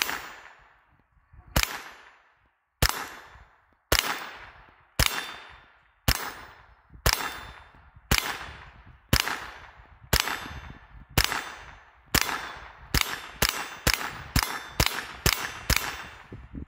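GSG-16 .22 LR semi-automatic rifle firing about twenty shots, each crack trailing off in echo. The shots come about one a second at first, then quicken to two or three a second over the last few seconds.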